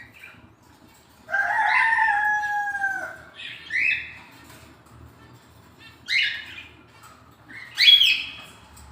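A rooster crows once, a long call that falls slightly in pitch, followed by a few short, sharp bird chirps spaced a couple of seconds apart.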